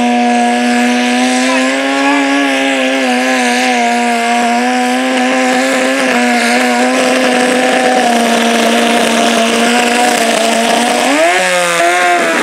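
Modified garden tractor's engine running at high, steady revs under full load as it drags a weight-transfer sled down the dirt track. Near the end the revs jump up briefly and then sag.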